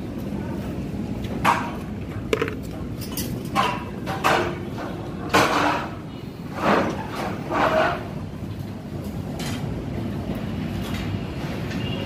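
Building-site background noise: a steady rumble with a series of short knocks and clatters, several in the first eight seconds, some with a brief metallic ring.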